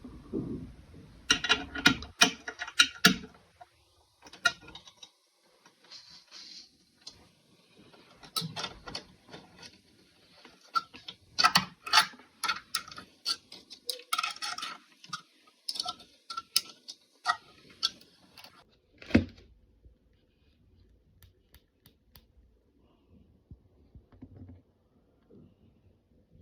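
Metal pliers being handled and worked, making irregular sharp clicks and clinks in clusters. After about 19 seconds only faint, scattered ticks remain.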